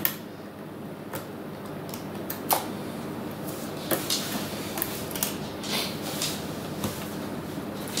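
A screwdriver unscrewing screws from the metal chassis plate of a Pioneer DDJ-1000 DJ controller: scattered small metallic clicks and taps as the tip seats and the screws turn.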